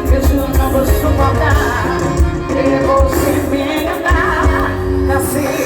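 Loud live forró music with a woman singing over a heavy, pulsing bass beat.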